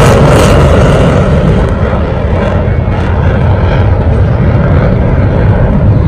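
Loud, steady rumbling noise with no clear pitch, dipping slightly in loudness around the middle.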